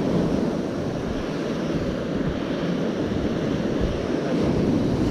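Sea surf washing on the shore with wind on the microphone: a steady rushing noise without any distinct strokes.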